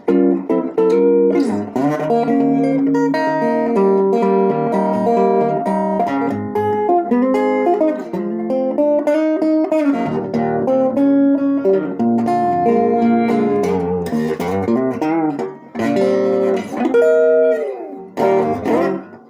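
1960 Guild T100 hollow-body electric guitar played on its neck pickup through an amp with no reverb. It plays a run of chords and single-note lines, with a few bent notes.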